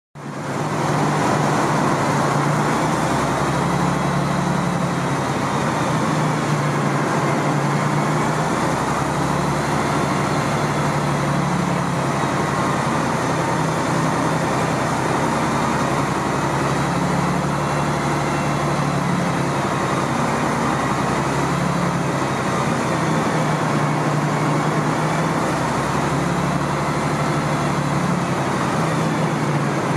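1985 MAN SL200 bus's diesel engine idling steadily, with a slight slow rise and fall every few seconds.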